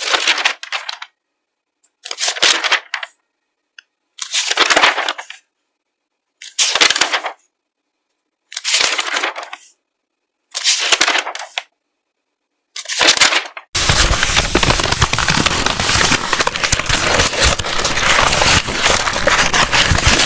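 Paper being crinkled and crumpled in short bursts about a second long, roughly every two seconds, then crinkling continuously from about two-thirds of the way through.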